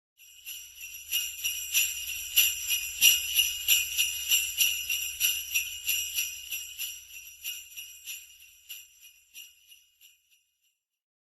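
Jingle bells shaken in a steady rhythm, about three shakes a second, dying away gradually over the last few seconds.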